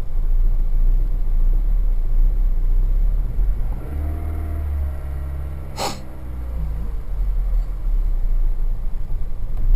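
Toyota 1ZZ-FE four-cylinder engine idling cold, heard from inside the cabin. Its revs rise about four seconds in and fall back, hunting after a long stand in frost: the idle sags so low that the engine tries to stall and is held up with a touch of throttle. A short sharp noise comes about six seconds in.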